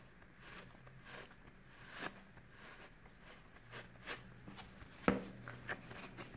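Wet, soapy foam sponge squeezed by rubber-gloved hands, making irregular soft squelches and clicks; a sharper click about five seconds in is the loudest.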